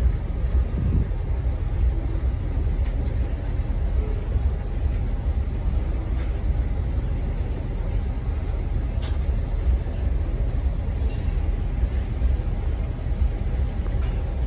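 Freight train cars rolling past, a steady low rumble of steel wheels on rail with a few faint clicks.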